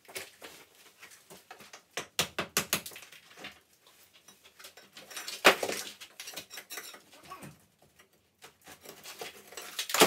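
Hammer chipping cement render off a stone wall: irregular sharp knocks, a quick run of them about two to three seconds in and one louder strike about halfway through.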